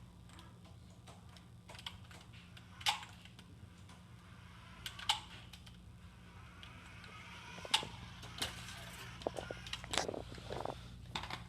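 Toy remote-control car being driven: scattered light plastic clicks and knocks, a handful of them sharp and loud, over a steady low hum.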